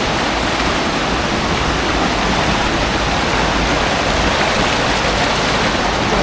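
A large waterfall rushing, a loud, steady wash of falling water close by.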